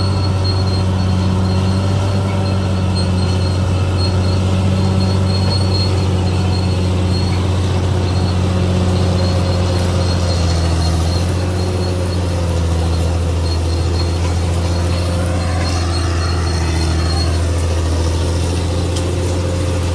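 CAT D6R XL bulldozer's diesel engine running steadily, with a high thin squeal coming and going over it. The engine note drops slightly partway through.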